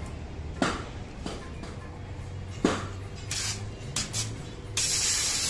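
Metal parts knocking and clinking as they are handled and worked with hand tools, with two sharper clanks about half a second in and just before the middle. Short spells of loud hissing follow, the longest near the end.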